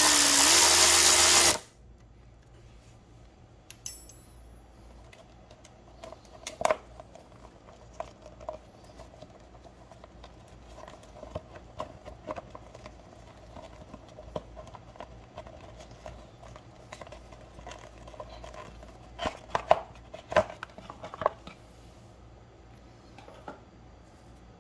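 Power drill/driver running steadily for about a second and a half as it backs a bolt out of a Yamaha FZ1's front sprocket cover, its pitch dipping briefly, then it stops. After that, light clicks and rustling of the plastic sprocket cover being worked loose and pulled off, with a few sharper clacks about twenty seconds in.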